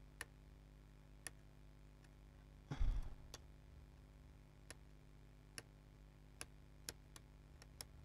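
Faint, irregular clicks of metal tweezer tips touching the power-button connector pins on a laptop motherboard, shorting them to ground to try to start the board. There is a soft muffled thump about three seconds in.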